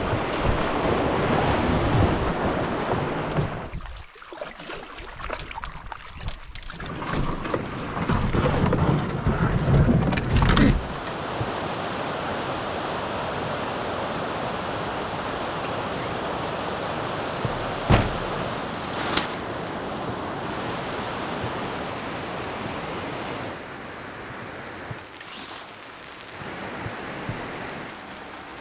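Whitewater rapids rushing loudly around a canoe for the first ten seconds or so, then a steadier, quieter rush of the river rapids, with one sharp click partway through.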